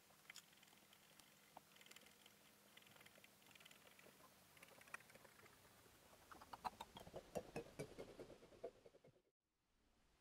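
Faint scratching of a fine steel needle tool drawing lines into the coated metal of an axe blade, thickening into a flurry of short quick scratches about six seconds in, then cutting off abruptly near the end.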